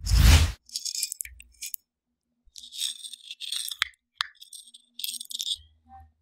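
A loud thump at the start, then a metal pizza cutter wheel rolling through a cheese-topped omelette and scraping across a ceramic plate in several short strokes, with faint ringing clinks.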